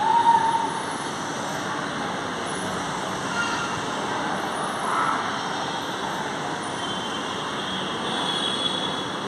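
Pune Metro train pulling slowly into an elevated station, a steady rushing rumble. A short loud tone sounds at the very start, and a few fainter short tones come over the rumble later.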